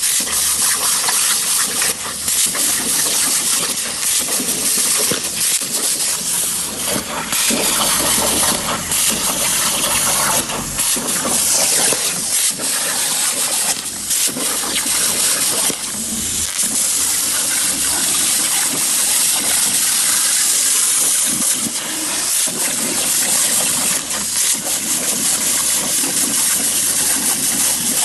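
CNC plasma cutter's torch cutting metal, a loud steady hiss of the arc and compressed air that wavers a little in level.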